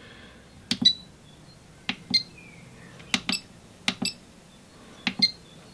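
Menu keys of a Graupner HoTT pistol-grip radio transmitter being pressed, about five presses a second or so apart, each a quick double click, some with a short high beep.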